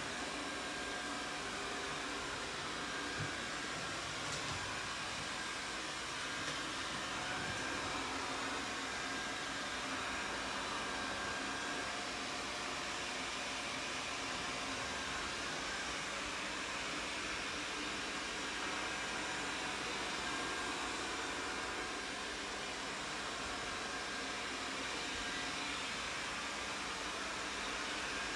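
Robot vacuum cleaner's suction fan running, a steady even whir that holds without a break.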